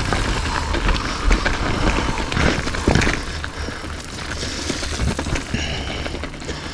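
Mountain bike rolling along a dirt trail: the tyres run over the ground with many small clicks and rattles from the bike, under a steady low rumble. It gets quieter over the second half.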